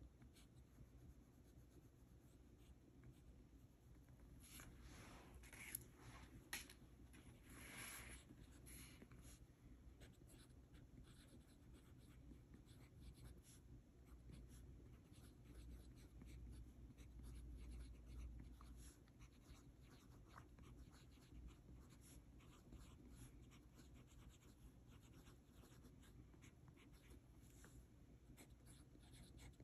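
Kaweco Sport fountain pen's broad steel nib writing on notebook paper: a faint, steady stream of small scratches as the letters are formed, with a few louder scrapes and ticks about five to eight seconds in.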